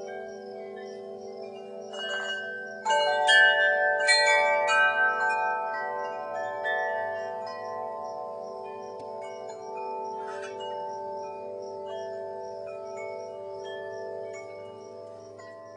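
Chimes ringing, a cluster of struck chime tones about two to five seconds in, over long held notes that slowly fade away.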